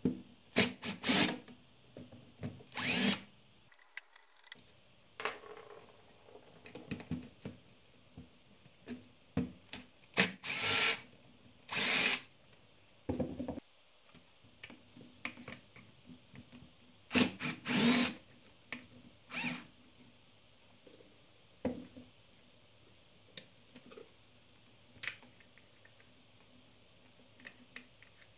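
Cordless power driver spinning in short bursts of a second or less, backing out the long screws that hold a chainsaw carburetor to the cylinder. Small clicks and knocks of parts being handled come between the bursts.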